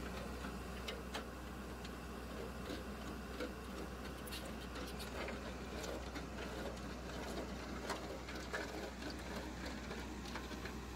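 Backhoe loader's diesel engine running with a steady low hum while its hydraulic auger is lifted out of a post hole, with irregular light ticks and clicks over it.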